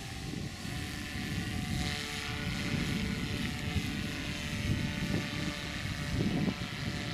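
Gusty wind buffeting the microphone, with a faint steady hum of several tones under it.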